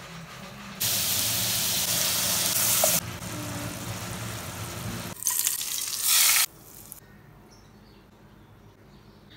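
Food sizzling and frying in a cooking pot, in a few loud stretches of hiss that start and stop abruptly. The loudest are between about one and three seconds in and again around six seconds. After that it turns much quieter.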